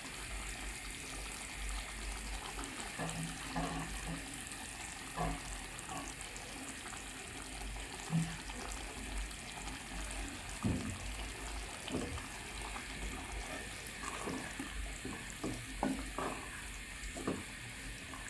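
Sardine stew simmering and sizzling in an aluminium pot on a gas flame, with a wooden spoon giving irregular knocks and scrapes against the pot as it is stirred.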